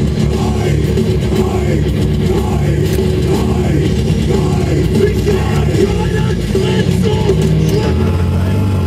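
Loud rock music, in a heavy metal style.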